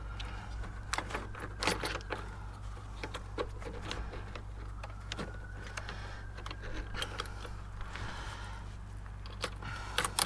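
Scattered light metallic clicks and clinks as a stainless exhaust silencer's mounting bracket, bolt and washers are handled and fitted by hand.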